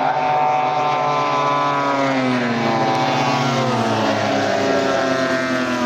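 Several large radio-controlled WW2 warbird models flying past, their propeller engines running together as a mix of pitched tones that slide down and back up as the aircraft pass.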